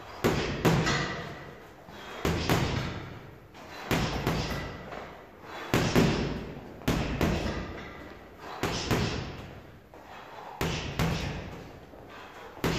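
Boxing gloves striking a heavy punching bag with straight punches, mostly in quick pairs such as jab-jab and jab-cross, with a pause of a second or two between combinations. Each thud trails off in the room's echo.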